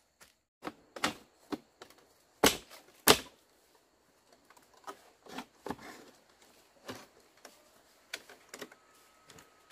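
A series of irregular sharp knocks and taps, the two loudest about two and a half and three seconds in, typical of hand work with tools or wood.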